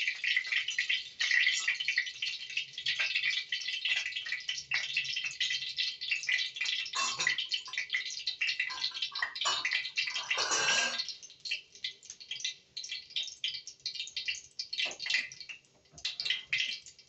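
Hot cooking oil sizzling and crackling in an aluminium kadhai after frying pointed gourd, with a brief louder rush about ten seconds in. The crackle thins out to sparse pops in the last few seconds.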